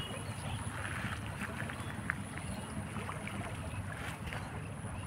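Wind buffeting the microphone in open country, a low steady rumble, with a faint high-pitched pulsing tone above it.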